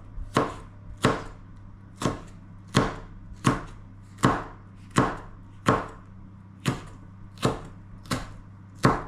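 Knife cutting a pepper on a chopping board: a steady series of sharp knocks, a little more than one a second, a dozen or so in all.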